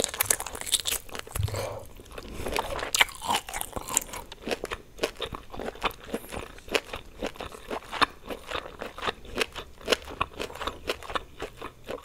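Crunchy chewing and biting of food: a rapid, irregular run of crisp crunches and mouth sounds.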